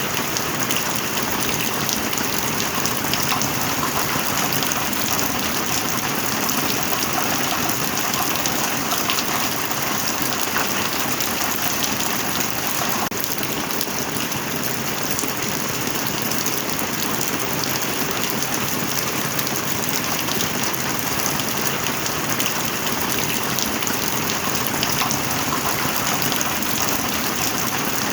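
Heavy rain falling steadily: a dense, even hiss of countless drops, with no let-up or thunder.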